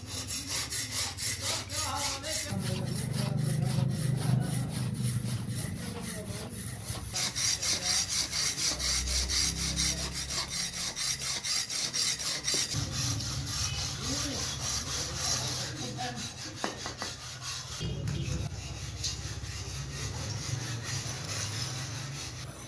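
Flat iron hand scraper rasping back and forth over the face of a stone griddle disc, in steady rhythmic strokes, smoothing the stone.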